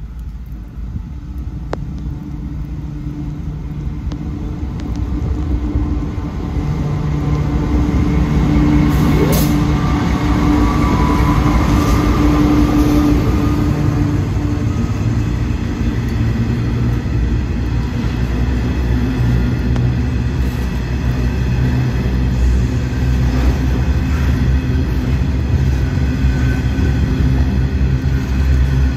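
Freight train hauled by two diesel locomotives approaching and passing, its engine drone growing louder over the first eight seconds or so. A long rake of hopper wagons then rolls past with a steady rumble of wheels on rail.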